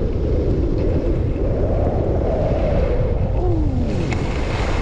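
Skis running over snow on a ski run, with a loud, steady rush of wind on the microphone; a few rising and falling scraping tones come and go around the middle.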